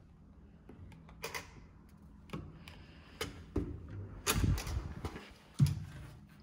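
Hotel room door being unlocked and opened: a string of sharp mechanical clicks and knocks over several seconds, the loudest a heavy knock about five and a half seconds in.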